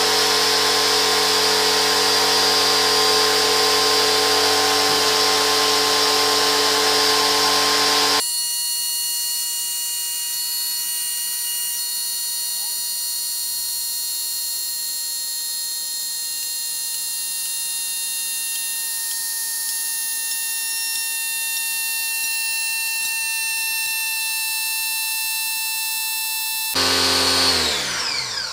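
Electric pressure-washer pump running steadily, forcing water into a hydroforming press to bulge a steel handpan shell. About eight seconds in the sound changes abruptly to a thinner, high-pitched whine, and near the end it winds down with falling pitch and stops.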